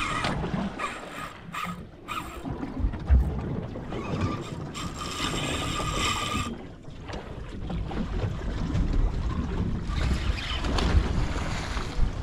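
Fishing reel drag buzzing as a hooked fish pulls line against a hard-bent rod: a few short spurts at first, then a longer run in the middle and another near the end. Wind rumbles on the microphone throughout.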